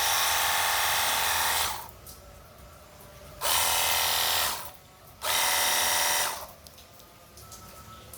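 Rechargeable handheld pressure washer gun's electric pump motor running with a whining note. It cuts off about two seconds in, then runs in two more short bursts of about a second each as the trigger is pulled and released.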